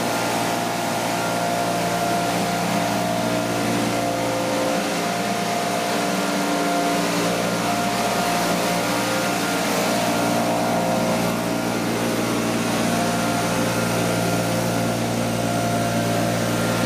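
Backpack leaf blower's engine running steadily at high speed, blowing lift air under a homemade plywood hovercraft.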